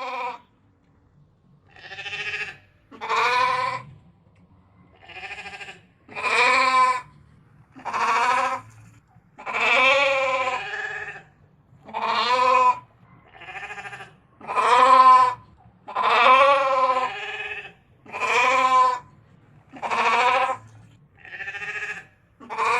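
A ram (male sheep) bleating over and over: about a dozen wavering calls, each lasting under a second or so, separated by short pauses.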